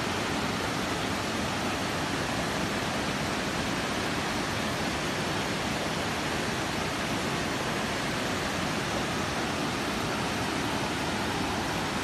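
Waterfall pouring over granite into a rock pool: a steady, even rush of water.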